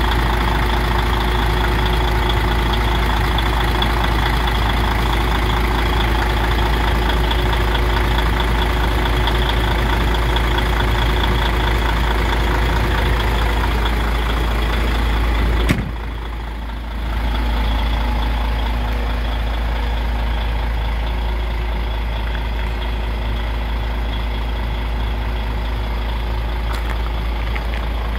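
DAF XF 105.460's PACCAR MX straight-six diesel idling steadily, heard close to the open engine bay. About 16 seconds in there is a click and a brief dip, after which the idle goes on a little softer.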